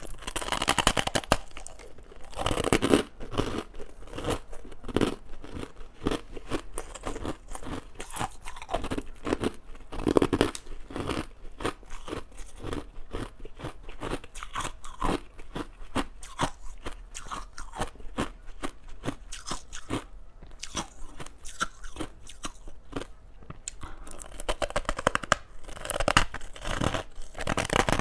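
Close-miked crunching and chewing of crushed ice: rapid, irregular cracks as the ice is bitten and ground between the teeth. There are louder bursts of biting about two seconds in, around ten seconds and again near the end.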